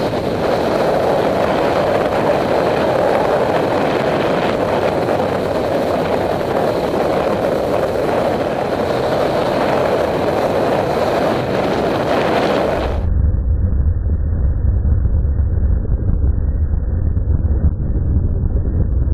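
Steady rushing wind noise on a moving action camera's microphone, mixed with traffic from the road alongside. About thirteen seconds in, the high end drops away and a heavy low wind rumble takes over.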